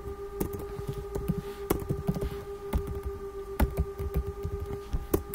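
Computer keyboard keys clicking irregularly as code is typed, over a steady faint hum.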